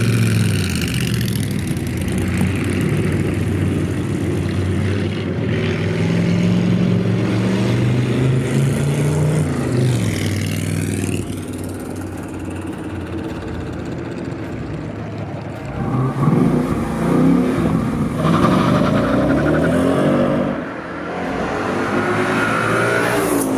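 A car engine driven hard, revving and accelerating over and over, its pitch climbing and dropping as it pulls through the gears.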